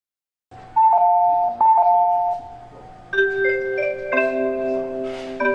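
Train-approach melody over a station platform's loudspeakers: a two-note chime sounds twice, then a bell-like melody of held notes begins about three seconds in, signalling that a train is about to arrive.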